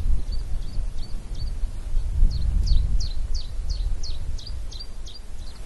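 A small bird calling a series of short, high chirps that each drop in pitch, a few at first, then about three a second from two seconds in until near the end. Underneath runs a steady low rumble of wind on the microphone.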